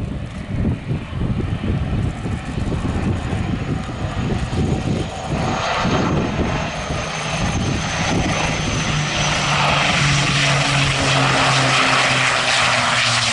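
Dornier C-146A Wolfhound twin turboprop on landing approach, its engines and propellers growing louder as it nears, with a steady propeller drone setting in about nine seconds in. Wind buffets the microphone in the first seconds.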